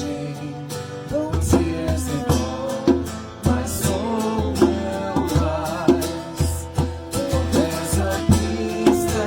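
Worship song: a voice singing over guitar, bass and drums with a steady beat.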